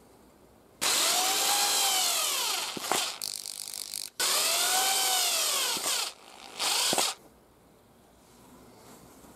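Cordless drill-driver driving two screws into a wooden board: two runs of about two seconds each, the motor's whine rising and then falling in pitch, then a short final burst of the motor.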